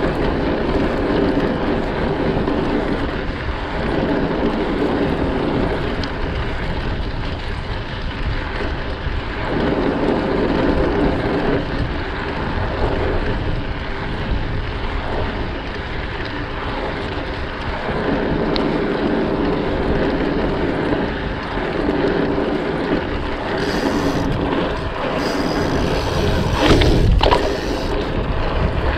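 Bicycle riding sound: dirt jump bike tyres rolling on pavement, with wind on the microphone, steady and rising and falling in level, and a louder bump near the end.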